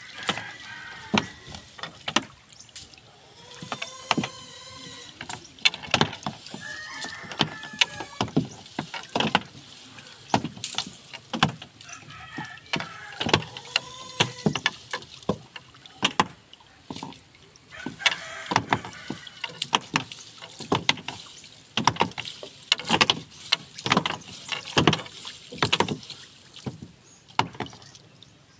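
Wet fishing net being handled and sorted over an outrigger boat: irregular sharp knocks and clatters throughout, with water dripping and splashing off the mesh.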